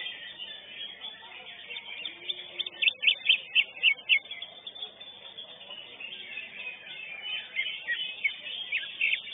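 Greater green leafbird (cucak hijau) singing in a contest cage: a rapid string of sharp chirps, with a loud run of about seven quick notes about three seconds in and a few downward-sliding notes near the end.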